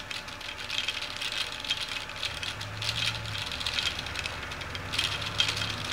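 Stepper motors of an opened mini drawing laser projector rattling and ticking rapidly and unevenly as they swing the mirrors to trace the beam's patterns, over a low hum.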